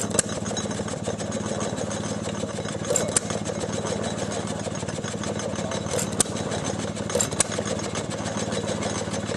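Small antique hit-and-miss gas engine driving a pump jack: a pair of sharp firing pops comes every few seconds while it coasts between power strokes, over a steady low engine drone.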